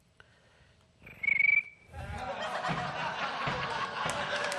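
A performer's mouth-whistled imitation of a cricket chirp: a single short, high whistle about a second in, after a silent pause, marking a joke that got no laugh. Audience laughter then builds and continues to the end.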